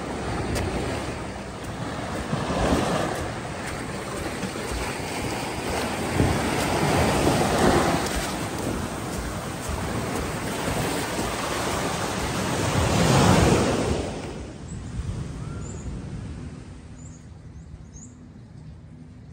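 Sea waves washing in and surging around a wooden footbridge and onto the sand, in several swells. About fourteen seconds in the wash drops away to a much quieter background.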